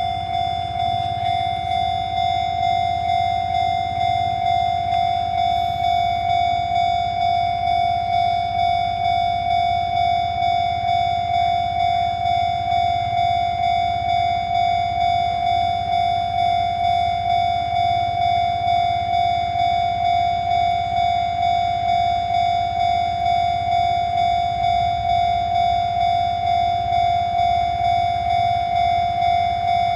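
Railway level-crossing warning bell ringing in an even repeated pulse, about one and a half strokes a second, the signal that the crossing is closed for an approaching train.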